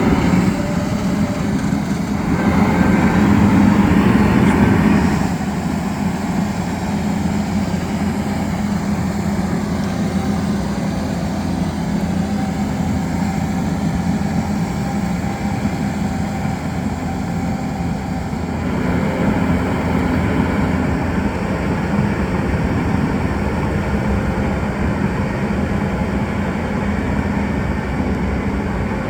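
John Deere 850 crawler dozer running steadily. It gets louder about two seconds in and settles back about five seconds in.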